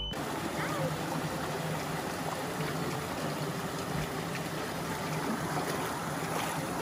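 Shallow rocky mountain creek flowing: a steady rush and babble of water.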